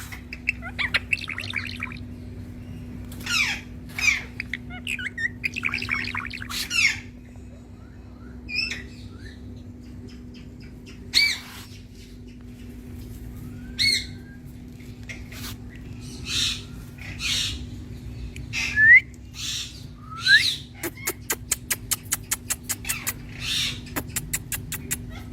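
Indian ringneck parakeet giving repeated short, loud squawks and chattering calls, with a fast run of clicking notes near the end. A steady low hum runs underneath.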